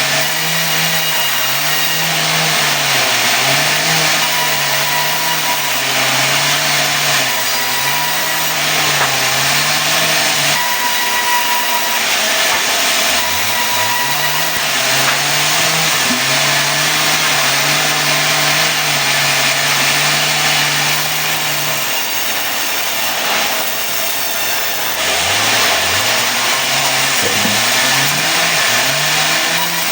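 Sawmill engine running under load while the saw cuts mahogany into boards, with a dense hiss of cutting over it. The engine pitch dips and recovers as the load changes, and it revs back up twice, about halfway and near the end.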